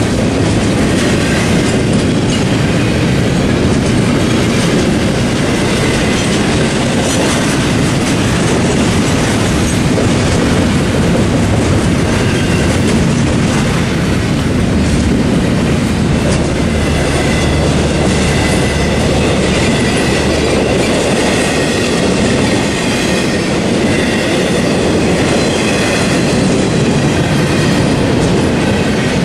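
Double-stack intermodal well cars of a CSX freight train rolling steadily past: a continuous rumble with the clickety-clack of steel wheels over the rails. Faint high tones come and go in the second half.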